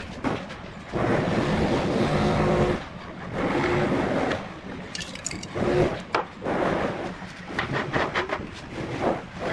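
Small electric motor of a power tool running in short bursts of a second or two, with sharp clicks and knocks of handling in between.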